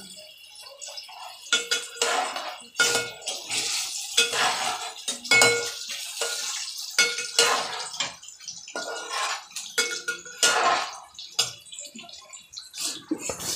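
Perforated steel skimmer spoon scraping and clinking against a metal kadai, about once a second, as chopped onions are stirred while they fry in oil, with a faint sizzle between the strokes.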